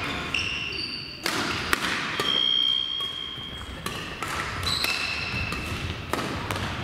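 Badminton rally on an indoor court: rackets strike the shuttlecock in sharp cracks, and players' shoes squeak on the court floor in short high squeals, one held about a second.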